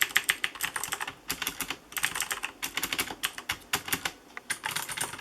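Typing on a Corsair K95 RGB mechanical keyboard with clicky Cherry MX Blue switches: fast runs of sharp key clicks, broken by short pauses.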